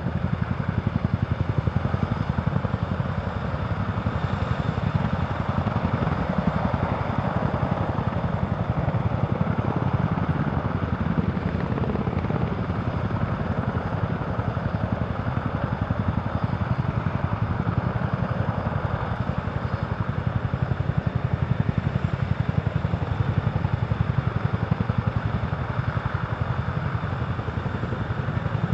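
Several twin-turbine NH90 helicopters hovering and lifting off close by: a steady, rapid rotor beat over the turbines' rushing noise.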